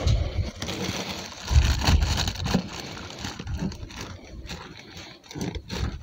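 Rustling and scraping of the plastic inner bag of a box of powdered work-clothes detergent as the powder is scooped out, with scattered clicks and a few low bumps from handling.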